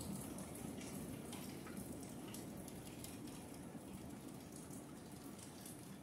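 Food cooking in a closed, lidded pot on a stove: a faint, steady low bubbling with scattered small pops and ticks.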